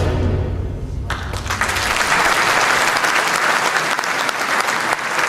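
The last low notes of music die away, and about a second in an audience breaks into applause that carries on steadily.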